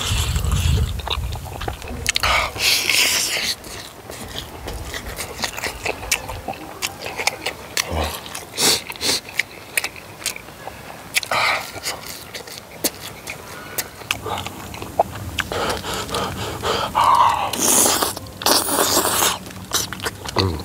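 Close-up eating of battered fried snacks (twigim): sharp crackling crunches as the crisp batter is bitten, with wet chewing between. It gets louder a couple of seconds in and again near the end.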